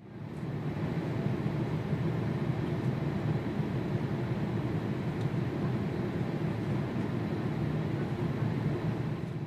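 Steady low rumble of an airliner in flight heard from inside the cabin: engine and airflow noise, fading in at the start.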